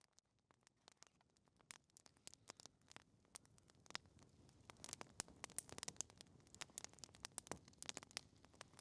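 Campfire logs burning and crackling: quiet, irregular sharp pops and snaps over a faint hiss, fading in at the start and growing busier about halfway through.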